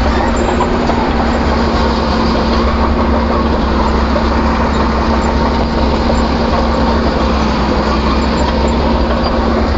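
Excavator's diesel engine running steadily, a constant low drone with a held hum and no change in speed.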